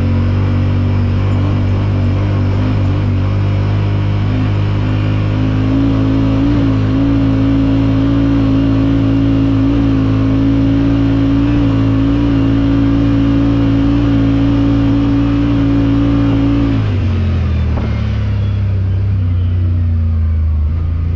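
Yamaha Wolverine X4's twin-cylinder engine running at a steady, high speed under load through its CVT, which is fitted with a JBS primary sheave. About 17 seconds in, the engine note drops to a lower pitch.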